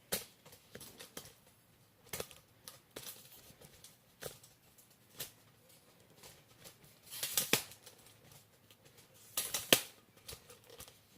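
Irregular clicks, taps and light knocks of a camera being handled, lowered and repositioned on its mount, with louder clusters about seven and nine and a half seconds in.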